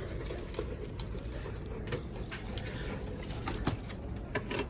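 Shop background noise: a steady low hum with a few faint clicks and rustles, as of goods being handled on shelves.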